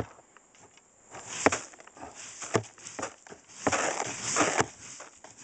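Dry bird seed rustling and crackling as it is stirred and dug through by hand, with several sharp clicks and a longer rustle near the end.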